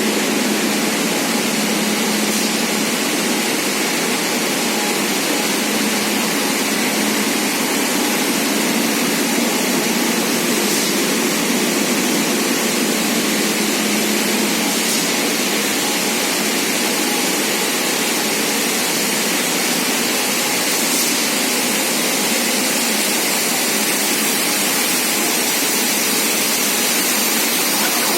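Rubber extrusion and microwave curing production line running: a loud, steady machine whir and hiss with no change.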